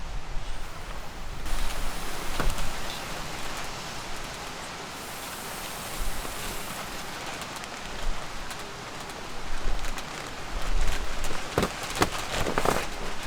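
Wind gusting over the microphone with a steady rustling hiss, and a few sharp clicks and knocks near the end.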